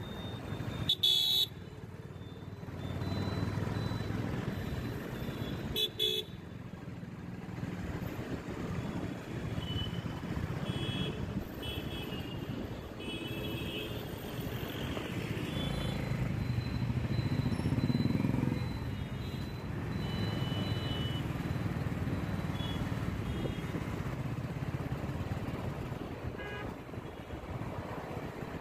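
Road traffic heard from a moving vehicle: a steady low rumble of engines and tyres, with short horn toots from cars and motorbikes now and then. Two sharp, loud noises come about a second in and again about six seconds in.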